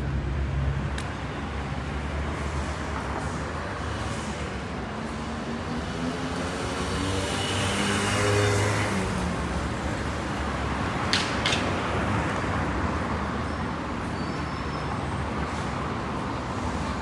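Street traffic: cars, buses and motorbikes passing on a busy city road, with one engine passing louder and closer about eight seconds in and a brief sharp click a few seconds later.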